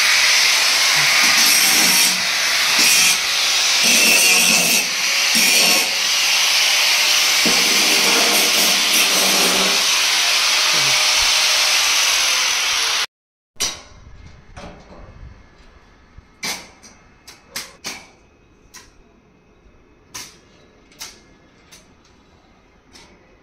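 Angle grinder running and grinding on steel roof framing, with its loudness dipping and swelling as it bites. It stops abruptly about 13 seconds in, and what follows is much quieter, with scattered sharp clicks and taps.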